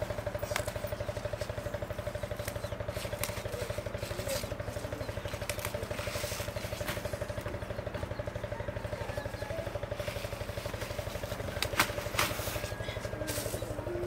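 Steady engine hum with a fast, even pulse, running without change. On top, light crackles and snaps of leafy stems and leaves being picked by hand, with two sharper snaps about twelve seconds in.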